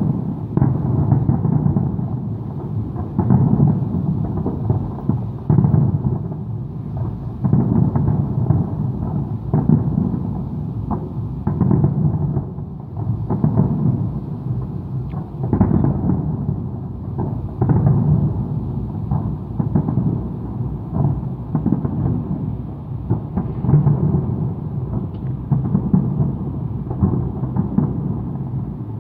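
Aerial fireworks shells bursting in a dense barrage heard from a distance: low booms follow one another every second or two and run together into a continuous rumble, with scattered sharper cracks.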